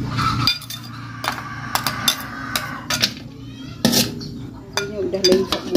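Metal ladle scraping and tapping spice paste off a ceramic plate into a metal wok: a string of sharp clinks and scrapes, metal against china and metal.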